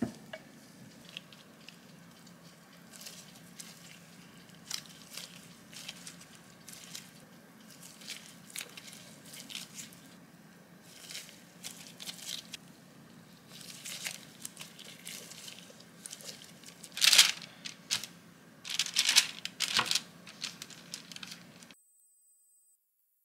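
Disposable plastic gloves and baking paper crinkling and rustling as hands pull apart, portion and press soft cookie dough, in many short, irregular rustles. The loudest crinkles come about three quarters of the way in.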